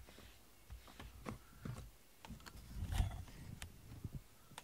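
Close handling noise: soft rubbing and scattered small clicks as a hand moves about the cat near the microphone, with a low thump about three seconds in.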